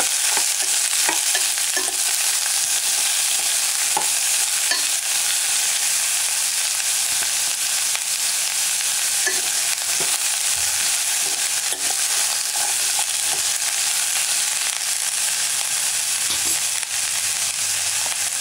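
Chopped green beans and carrots sizzling steadily in hot oil in a steel pot as they are stirred, with the spoon scraping and knocking against the pot now and then.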